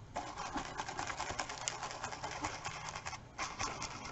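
Stencil brush pouncing and swirling gilding wax through a stencil onto canvas: a quick run of small dry taps and brushing, with a short lull about three seconds in.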